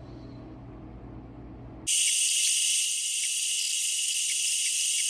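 A low steady workshop hum, which cuts off abruptly about two seconds in. It gives way to a loud, steady, high-pitched hiss from a CNC router spindle engraving PVC sheet, with a few faint ticks.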